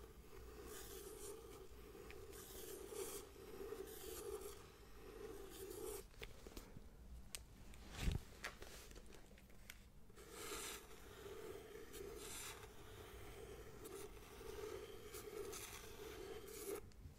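Pencil scratching in quick strokes across the paper of a spiral-bound sketchpad, held close to the microphone. It pauses for a few seconds midway, with a single thump about eight seconds in as the pad is handled, then the scratching resumes.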